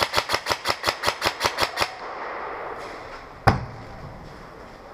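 Airsoft gun firing a rapid string of shots, about seven a second, that stops about two seconds in. A single sharp crack with a low thump follows about a second and a half later.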